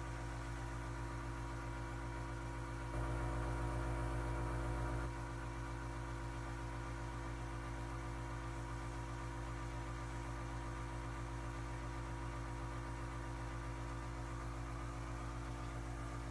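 Airbrush compressor running with a steady electric hum and a faint hiss, louder for about two seconds a few seconds in.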